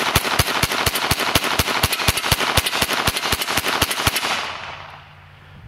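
IWI Uzi pistol in .22 LR fired semi-automatically in rapid succession, some two dozen sharp shots at about five or six a second. The pistol cycles through the magazine without a jam on CCI Mini Mag ammunition. The firing stops about four seconds in, and the echo trails off.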